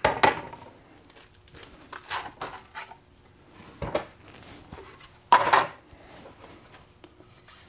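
Hard 3D-printed PLA mold shell pieces knocking and clattering as they are pulled off a plaster mold and set down on a wooden board. There are a few separate knocks, and the loudest comes about five seconds in.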